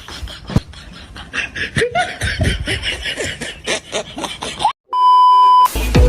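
Snickering and laughter, then a sudden brief cut to silence about four and a half seconds in, followed by a steady, single-pitched censor bleep lasting about a second. Loud background music starts abruptly near the end.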